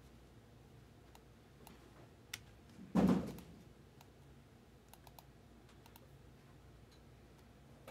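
Scattered computer keyboard and mouse clicks, a few at a time, with one louder dull thump about three seconds in.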